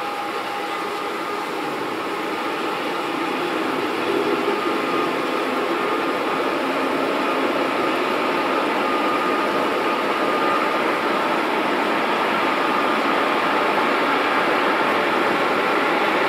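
Freight train of container wagons rolling past along the riverbank, a steady rumble and hiss that slowly grows louder, with a faint held whine.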